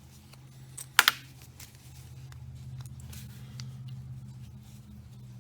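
A sharp double click about a second in, then light scattered ticks and clicks as small parts of a high-pressure waterjet swivel are worked out with pliers, over a steady low hum.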